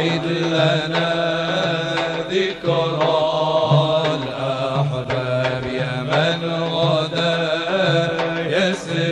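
Male munshid singing an unaccompanied Islamic devotional chant (inshad) through a microphone, the melody drawn out and ornamented over a steady low held note.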